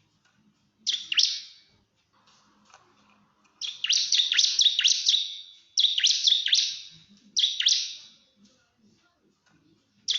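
Bar-winged prinia (ciblek) singing loud bursts of sharp, high, rapid chirps with short pauses between them. There is one brief burst about a second in, a longer rapid run a little under four seconds in, and two shorter bursts after it. This is the fast 'nembak' song used to call and challenge a rival.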